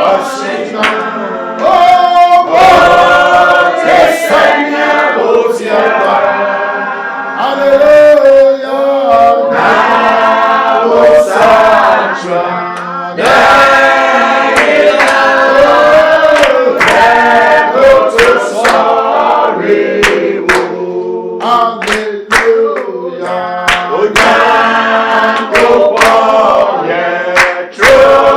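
A group of voices singing a praise song together in chorus, with sharp percussive beats running through it.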